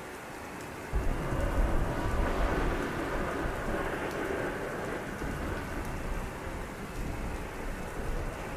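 Heavy rain falling steadily, with a roll of thunder that breaks in suddenly about a second in and rumbles on, slowly fading.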